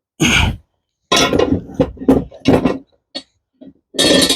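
A run of sudden metallic clanks and clinks, about eight in all with short gaps between, as tools and steel lawnmower parts are handled and moved; the last, longest one comes near the end.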